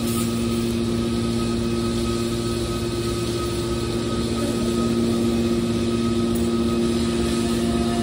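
Hydraulic scrap metal baler's power unit running with its rams at rest: a steady motor and pump hum with a constant low drone.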